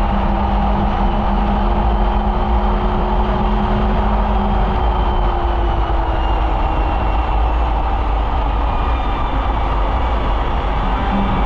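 Polaris Indy snowmobile running along the trail, its engine note holding steady and then easing lower about halfway through, over a heavy low rumble.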